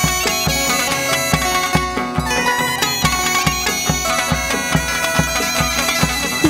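Chầu văn ritual music played by the ensemble: sustained melody lines over a steady percussion beat of about three strokes a second.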